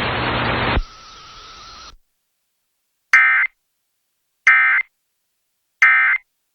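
Emergency Alert System End of Message data signal: three short, identical bursts of the buzzing digital "NNNN" code, each about a third of a second long and about 1.4 s apart, marking the end of the alert. Before them, the hiss behind the relayed weather warning cuts off just under a second in and fades out soon after.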